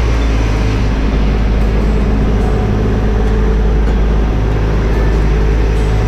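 A vehicle engine running steadily, a loud low drone.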